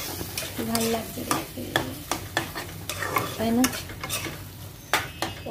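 Flat spatula stirring and scraping a thick dal-and-egg tadka around a black kadai in irregular strokes, over the hiss of the mixture sizzling in the hot pan. A couple of short squeaks come through, about half a second in and again past three seconds.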